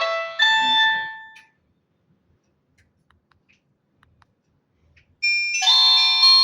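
Nokia mobile phone ringtone: a quick run of electronic notes ends on a held note that fades away, a few seconds of near silence follow, and about five seconds in a different Nokia ringtone starts abruptly with a repeating melody.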